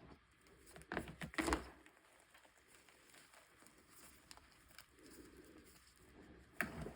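Blocks of gym chalk snapping and crackling: a cluster of sharp cracks about a second in, a single crack near the end, and faint crumbling ticks in between.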